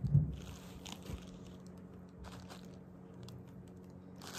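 A soft bump at the start, then faint, sparse rustling and crinkling of tissue paper as packed baby clothes are handled.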